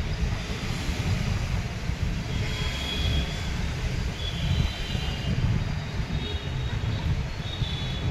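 Outdoor ambience: a steady low rumble throughout, with faint high-pitched chirps coming and going every second or two.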